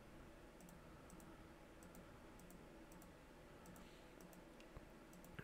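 Faint, irregular computer mouse clicks, about a dozen, over near-silent room tone, as path nodes are placed while tracing an outline.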